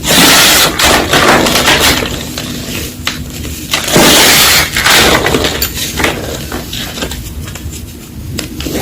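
Reformed gym chalk crunching and crumbling as it is crushed: loud crunches in the first second, again from about one to two seconds in and around four seconds in, with smaller crackles between.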